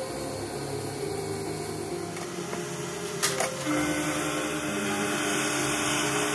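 Metal lathe running as it turns a part. A sharp click comes a little after three seconds in, after which a steady hum joins and the running grows slightly louder.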